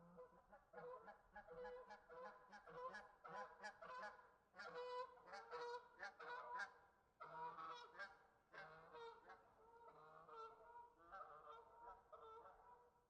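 A group of geese honking, with many short calls overlapping in quick succession. The calls are thickest in the middle and thin out toward the end.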